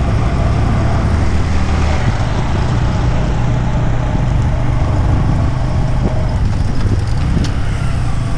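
Steady engine hum with rushing wind and road noise from a motor vehicle moving at speed, holding at one level throughout.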